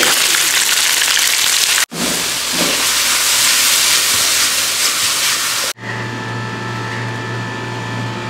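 Hot oil sizzling loudly as chicken pieces fry in a pan, then, after a brief cut, a pan of chicken and sauce sizzling as it is tossed over a gas flame. About two-thirds of the way in the sizzling stops, leaving a steady low hum.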